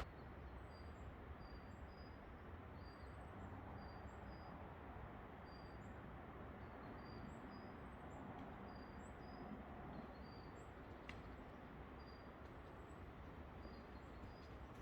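Small birds giving short, high chirps over and over, a chirp or two a second, faint against a quiet outdoor hiss.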